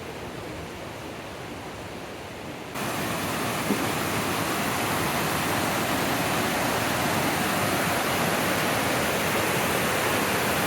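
Steady rushing hiss of water falling over a creek cascade. About three seconds in it jumps suddenly louder and brighter, then holds steady.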